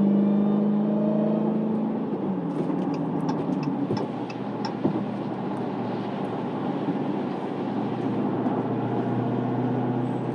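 Supercharged Hemi V8 of a Dodge Challenger SRT Hellcat Redeye pulling steadily after a rise in revs, then easing off about two seconds in and settling to a lower, steady cruise note. Tyre noise from the wet road runs underneath.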